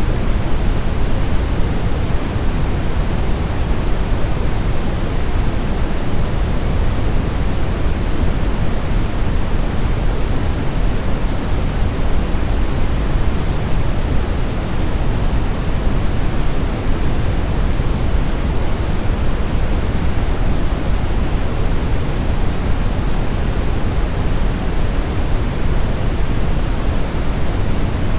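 Steady brown noise: a smooth, even rumbling hiss, heaviest in the bass and thinning toward the treble, with no change in level.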